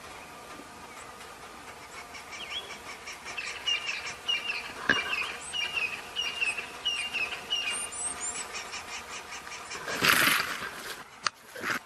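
Outdoor natural ambience with a small creature's short chirping call repeated about twice a second, then a brief loud rush of noise near the end.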